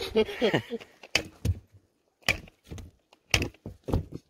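A landed pike being struck on the head to stun it: about six sharp knocks, the first about a second in, spaced half a second to a second apart.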